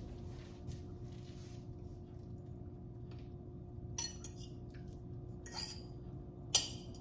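Metal fork clinking and scraping against a ceramic bowl: a few light taps about four seconds in, a short scrape, then one sharper clink near the end.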